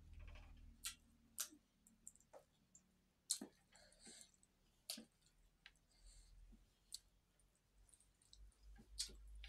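Faint, scattered sharp clicks and small crunches of eating by hand: fingers picking at crisp fried fish and rice on the plates and bringing it to the mouth.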